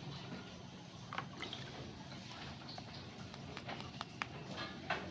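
Plastic toy figures and packaging being handled: faint rustling with scattered small clicks, which come more often toward the end.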